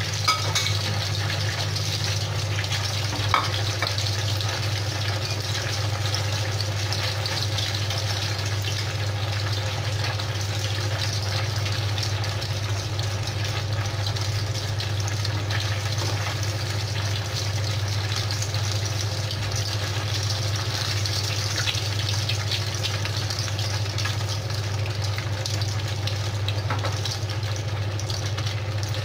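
Breaded milk fingers deep-frying in a pan of hot oil: a steady sizzle with small crackles and pops, over a steady low hum. One sharper click about three seconds in.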